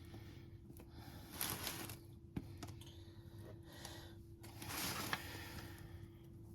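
Mayonnaise being spread on slider buns, soft scraping strokes with a few light clicks, the clearest strokes about a second and a half in and about five seconds in. A faint steady hum lies underneath.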